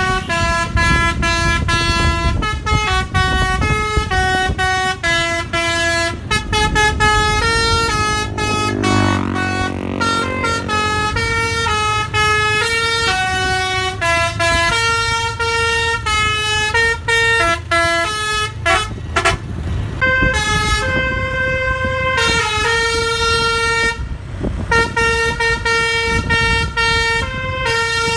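A bus's basuri telolet multi-note air horn, keyed by hand like a melodica, tooting a quick melody of short stepped notes over a low rumble.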